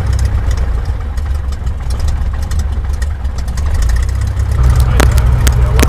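Light airplane's piston engine and propeller running at low power, heard from inside the cabin; about four and a half seconds in the engine note steps up a little as power is added. A few sharp clicks come near the end.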